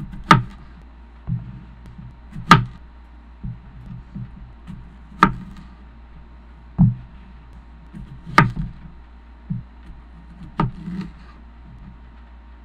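Chef's knife cutting the stem ends off jalapeño peppers: six sharp knocks of the blade striking the board, about two seconds apart, with softer knocks and handling of the peppers between them. A steady low hum runs underneath.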